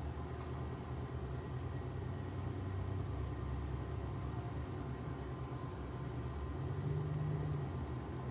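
Small electric motor of a tumbler cup turner humming steadily as it slowly spins an epoxy-coated tumbler.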